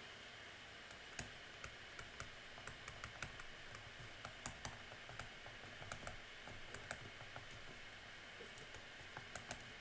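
Typing on a computer keyboard: faint, irregular key clicks, about two or three a second, over a low steady room hiss.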